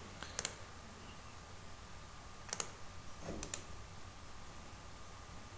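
Quiet computer mouse clicks: three short sharp clicks or quick press-and-release pairs, spread over a few seconds against faint room noise.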